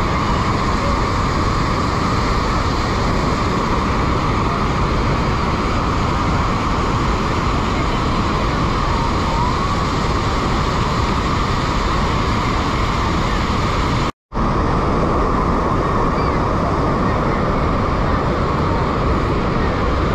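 Steady loud rush of Niagara Falls whitewater crashing over boulders and falling through mist. The sound cuts out for a moment about two-thirds of the way through.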